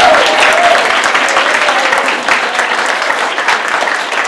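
Audience applauding: many people clapping, slowly tapering off.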